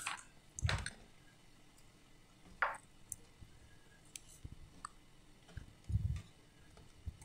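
Metal kitchen tongs clicking and knocking faintly against the frying pot a few times, spaced well apart, as fritters are lifted out of the oil.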